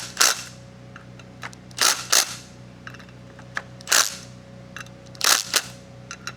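Click-type torque wrench clicking as rotor bolts reach their set torque of about 32 foot-pounds: sharp clicks, often in pairs, every second or two.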